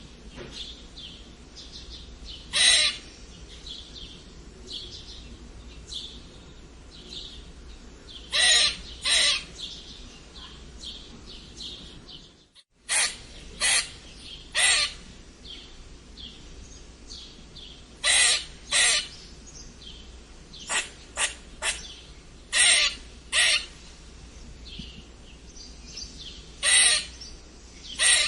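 Squirrel giving short, harsh squeaking calls, one at a time or in quick pairs and threes every few seconds, over a faint steady background hiss.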